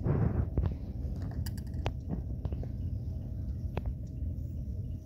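Handling noise from a phone being set in place: a few light, scattered clicks over a low steady rumble.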